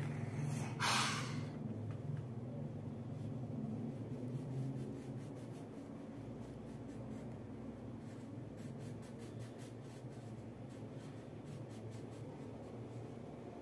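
Wax crayon scratching and rubbing on paper as a child colours, with many faint quick strokes in the later part. About a second in there is a short, louder rush of noise.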